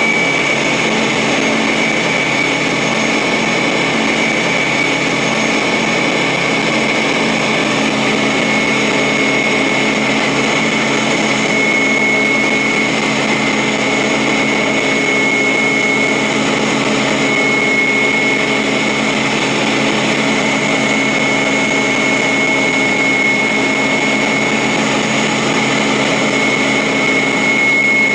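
Steady mechanical drone with a constant high-pitched whine over it, unchanging throughout.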